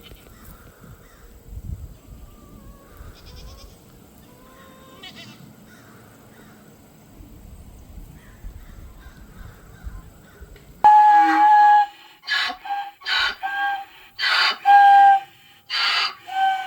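Faint goat bleats over a low rumbling background, then after an abrupt cut about two-thirds through, a run of loud, short, flat-pitched animal calls in quick succession.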